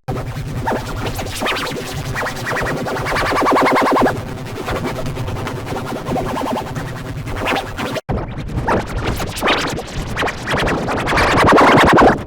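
Heavily effected, glitchy audio: rapidly chopped, stuttering, scratch-like sound layered with electronic music. It cuts out for an instant about eight seconds in.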